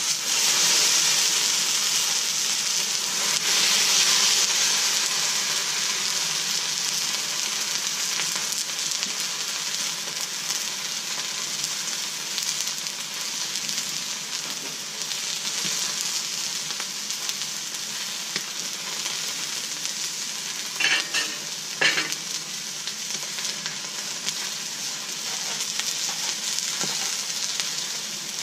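Boneless, skinless chicken breasts sizzling on a hot Blackstone flat-top griddle, the sizzle starting suddenly as the meat hits the steel, loudest in the first few seconds and then going on steadily. A couple of sharp clicks sound about three-quarters of the way through.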